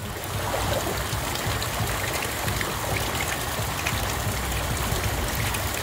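Steady splashing and trickling of water, with a low rumble underneath and small scattered ticks.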